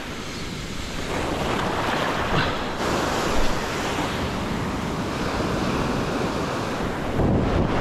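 Surf breaking and foaming wash running up and around the feet in shallow water, a steady rushing hiss, with wind buffeting the microphone.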